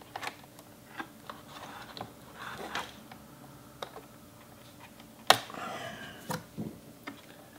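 Small clicks and light scraping of fingers and tools working cable connectors loose on an iMac's logic board, with one sharp click about five seconds in followed by a brief rustle.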